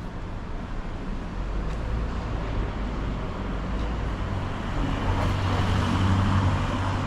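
Road traffic: a motor vehicle passes close by, its engine hum and tyre noise building to a peak about six seconds in over a steady low rumble.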